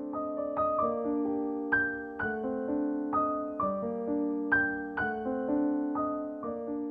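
Background piano music: a slow melody of ringing, fading notes over held lower notes.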